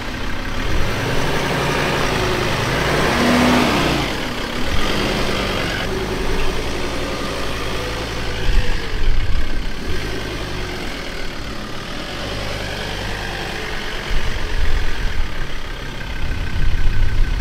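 A four-wheel-drive ute's engine working as it tows a caravan through soft beach sand, its level rising and falling.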